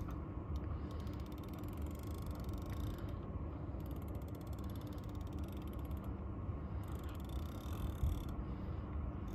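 Fishing reel being wound in, a fast fine ratcheting tick, in three spells with short pauses between them, over a low steady rumble.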